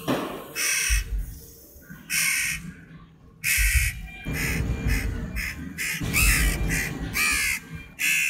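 Crow chick giving repeated harsh begging calls while being hand-fed: about ten short cries, spaced out at first and coming faster in the second half.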